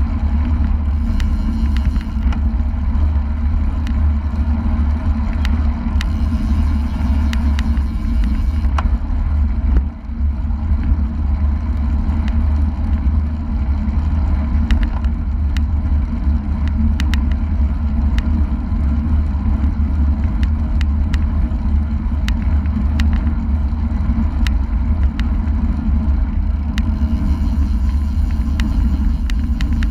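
Wind rushing over a GoPro mounted on a road bike moving at about 35–40 km/h, heard as a steady heavy low rumble, with road and tyre noise and scattered small clicks and rattles; the rush dips briefly about ten seconds in.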